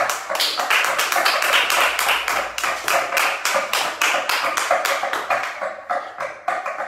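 Flamenco palmas (hand-clapping) and shoe taps from two dancers: a fast, even run of sharp claps and taps, with music underneath.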